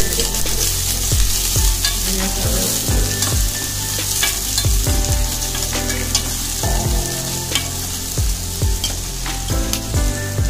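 Sliced onions sizzling in hot oil in a nonstick pan, stirred continuously with a metal spatula that scrapes and taps against the pan every second or so.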